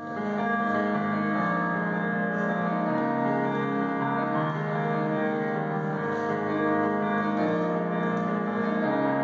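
Kawai ES8 digital piano playing sustained chords, starting suddenly out of silence.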